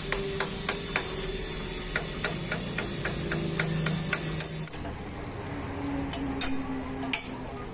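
Rhythmic mechanical ticking, about four clicks a second, over a low steady hum, which stops about four and a half seconds in. Near the end come a few sharp metal clanks from tool work on the engine mounting and gearbox.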